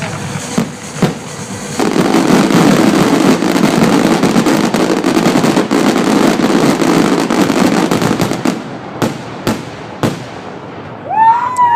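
Fireworks display: a few separate bangs, then from about two seconds in a dense, continuous barrage of rapid crackling reports lasting about six seconds, followed by a handful of single loud bangs. Shouts and whoops from the onlookers begin near the end.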